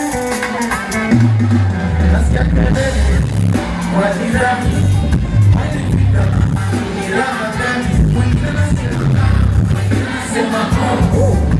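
Live music over a festival PA: a heavy bass beat with singing over it, the bass coming in about a second in.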